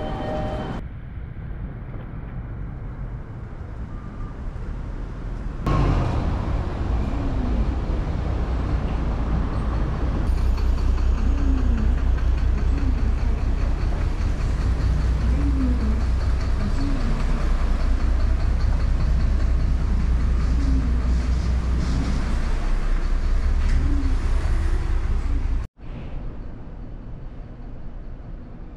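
Outdoor city street ambience with a heavy, steady low rumble of passing traffic. It cuts off abruptly near the end to a quieter indoor room tone.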